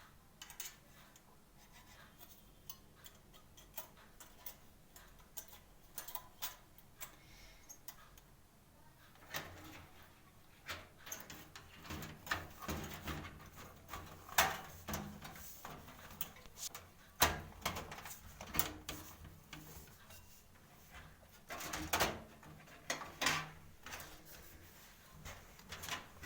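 Irregular clicks, taps and light knocks of computer hardware being handled as a motherboard is fitted into a desktop case. The knocks are sparse at first and come thicker from about a third of the way in.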